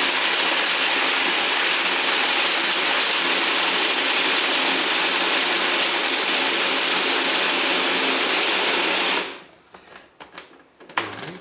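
Electric kitchen grinder running continuously, its blades chopping raw coconut chunks into grated coconut; a steady whirring that switches off about nine seconds in, followed by a few light clicks.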